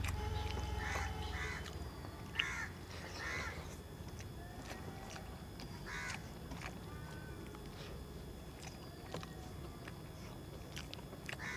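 Crows cawing several times in the background, with smaller birds chirping. Light sharp clicks of fingers on a steel plate come through now and then.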